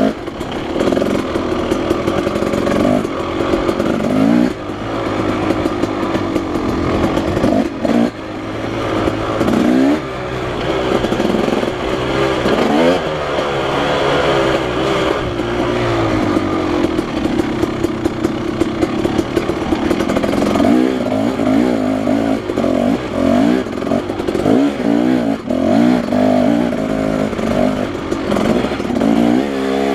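Husqvarna 300 two-stroke dirt bike engine running under way, its pitch rising and falling again and again as the throttle is opened and closed.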